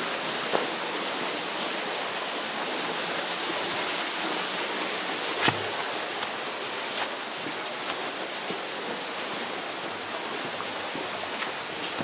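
Steady rushing of flowing water, an even hiss, with a few faint clicks of footsteps or snapping twigs.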